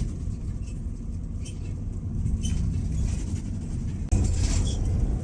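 Low, steady rumble of a moving road vehicle, which gets louder abruptly about four seconds in.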